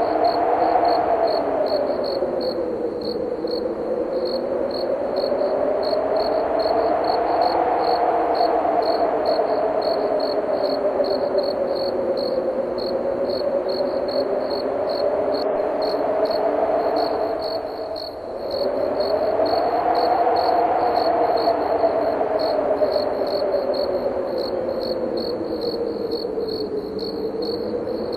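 Wind blowing in slow gusts whose whistling pitch rises and falls, dropping away briefly about two-thirds of the way through. Crickets chirp in an even, rapid pulse above it throughout.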